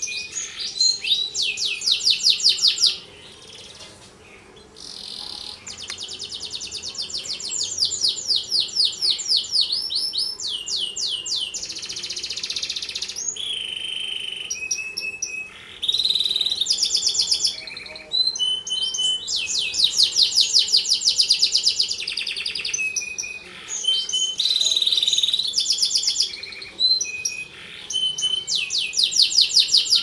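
Domestic canary singing: long high-pitched phrases of fast, evenly repeated notes and rolling trills, one after another, with a short pause about three seconds in.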